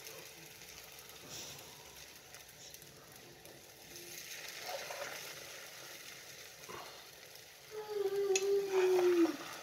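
Beaten eggs sizzling faintly in pork lard in a frying pan, with a fork scraping and stirring them. Near the end comes a short hum-like tone that falls slightly in pitch.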